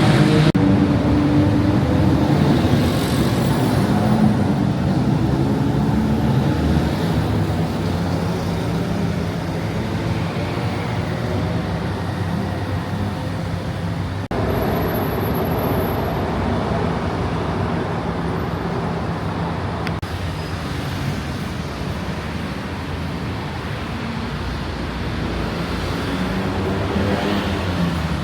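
Steady motor traffic on a city street: the continuous hum of car engines and tyres passing.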